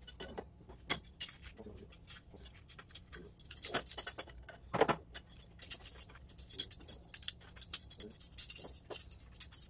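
The stainless-steel tube legs and chain of a camping cooking stand clinking and jangling against each other as they are handled, with a louder metallic clank about five seconds in.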